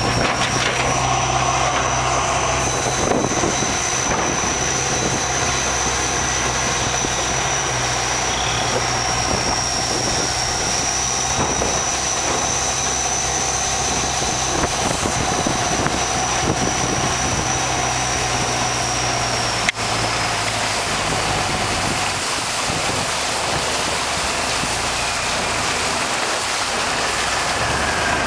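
Boat engine running steadily with a high whine over its drone. It eases off about two-thirds through, just after a single sharp click.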